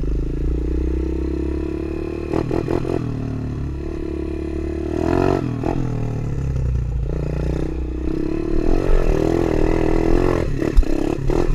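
A Tao Tao DB24 110cc pit bike's single-cylinder four-stroke engine running while being ridden, its revs rising and falling with the throttle. A few short clattering knocks come through, about two seconds in, around the middle, and near the end.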